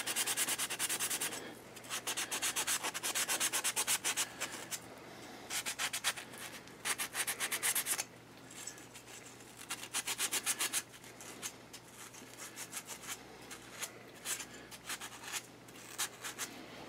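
Sand cloth rubbed briskly back and forth over a boiler's flame rod and ignition electrode, in runs of quick scraping strokes with short pauses between them. It is scouring the white oxidation off the rod back to bare metal.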